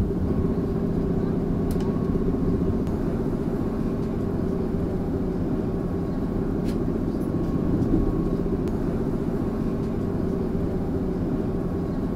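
Steady low rumble and hum of a TTC streetcar in motion, heard from inside, with a few faint clicks.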